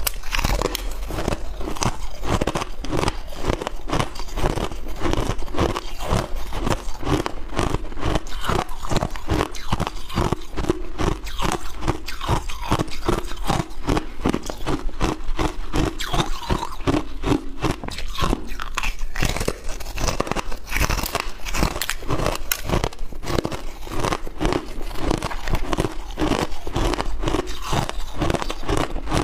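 Rapid, close-miked crunching of hard frozen ice being bitten and chewed, several crunches a second.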